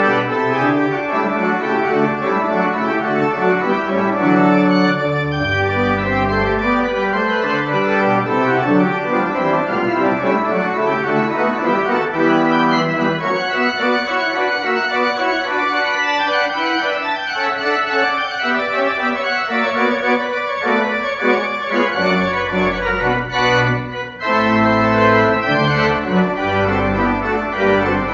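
Church pipe organ playing a piece: full chords held over moving low pedal notes. Near the end the sound briefly lifts off, then the pedal bass comes back strongly.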